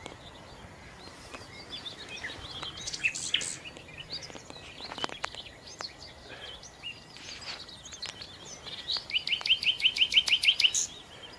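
Wild birds chirping, with scattered short calls, then near the end a fast run of about a dozen sharp, evenly spaced notes, the loudest part.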